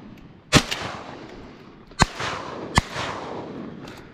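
Shotguns fired at passing teal: three loud blasts at about half a second, two seconds and near three seconds in, with a fainter crack right after the first, each trailing off in an echo.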